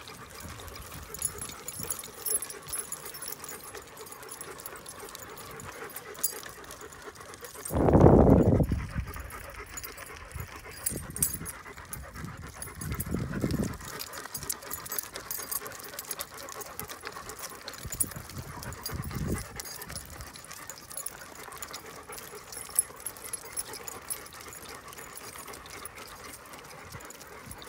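Dogs panting as they walk on leash, with light clicks and jingles from their chain collars. A low rumble on the microphone about 8 seconds in is the loudest sound, with smaller ones near 13 and 19 seconds.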